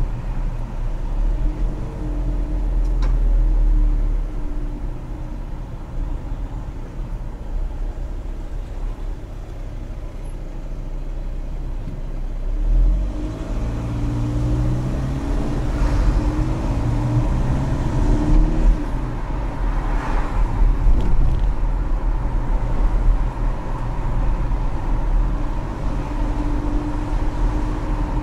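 A car being driven in town, heard from inside the cabin: a deep steady rumble of engine and tyres, with the engine note rising several times as the car accelerates and falling back at gear changes.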